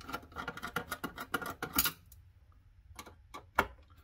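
Cable plugs and wiring clicking and rattling as they are worked loose from a PC motherboard inside a stamped sheet-metal case: a busy run of small clicks for about two seconds, then a few single clicks.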